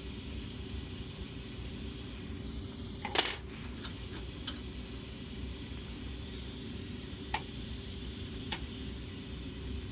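Sharp clinks on a glass lathe: a quick cluster about three seconds in, then a few single clicks, over a steady hiss and low hum.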